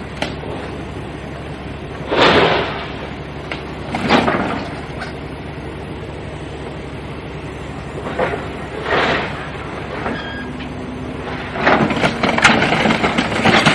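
A vehicle runs with a steady low drone, broken by short rushes of noise about 2, 4, 8 and 9 seconds in. Louder, busier noise comes in for the last two seconds.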